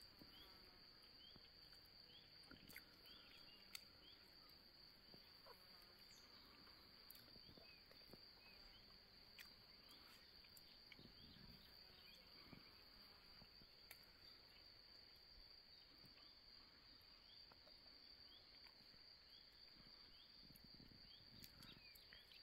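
Near silence: a faint, steady high-pitched insect drone, with scattered faint bird chirps.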